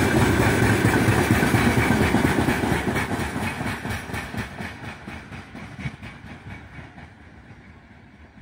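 Freight train wagon wheels clattering over the rail joints as the last open-top gondola cars roll past, in a steady rhythmic clickety-clack. About three seconds in, the train's tail moves away and the sound fades steadily into the distance.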